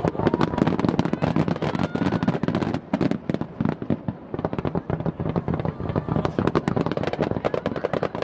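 A fireworks display with rapid, dense crackling and popping of many shells bursting one over another, with a faint whistle rising from a shell now and then.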